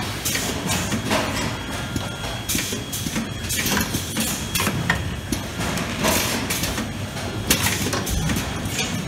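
Irregular clicks, clacks and knocks of parts being handled and seated in a semi-automatic cable assembly bench, with its mechanisms working, over a steady low machine hum.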